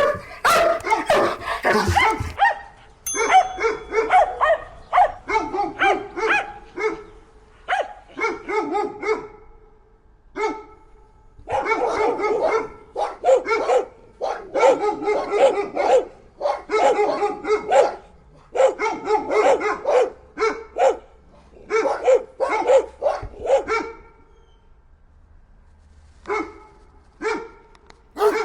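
Dogs barking in quick volleys of several barks each, with short pauses between volleys.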